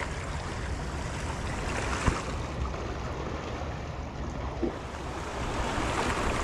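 Small sea waves washing against the rocks of a seawall, with wind rumbling on the microphone. A single sharp tap about two seconds in.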